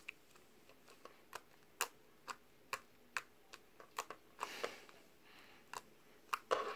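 Orange slime being pressed and poked with fingertips, giving irregular sharp clicks and pops, about two a second, with a longer squelch about halfway and another near the end.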